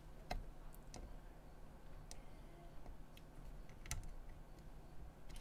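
A few faint, scattered clicks, the loudest about four seconds in, over a low steady hum: metal multimeter probe tips tapping and sliding on the pins and solder joints of a circuit card.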